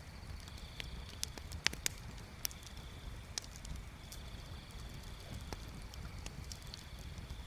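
Bonfire crackling, with irregular sharp pops of burning wood, a few louder ones about a second or two in, over a low steady rumble. A high steady trill fades in and out in the background.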